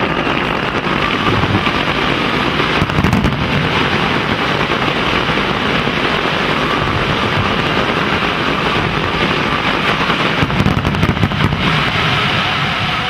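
Fireworks display in a dense, continuous barrage of bangs and crackling, with heavier clusters of sharp bursts about three seconds in and again around ten to eleven seconds in.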